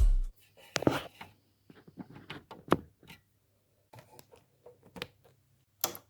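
Handmade speaker with two 8-inch woofers falls silent as bass-heavy music cuts off just after the start, leaving a faint low hum. Scattered small clicks and knocks follow, the loudest about a second in and near the end.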